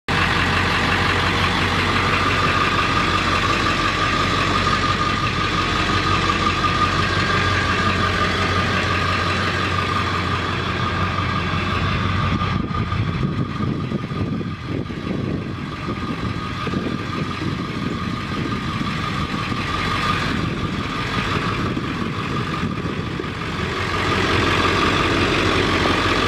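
The 7.3L V8 turbo diesel engine of a 2000 Ford F250 Super Duty idling steadily. The seller lists this engine as running rough.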